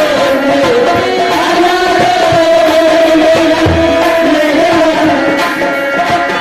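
Ghazal music: a long, gently wavering sung melody over tabla drumming.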